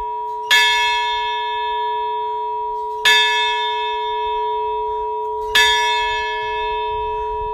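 A large bell in an open bell tower is struck three times, about two and a half seconds apart. Each stroke keeps ringing with a steady hum until the next.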